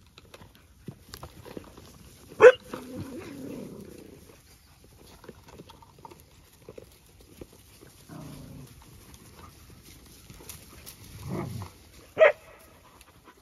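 A dog barking sharply twice, about two and a half seconds in and again near the end, with low growls in between.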